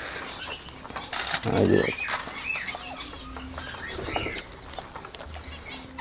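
A flock of Indian ringneck parakeets feeding, giving short wavering chirps, with wing flaps and a sharp rustle a little after one second.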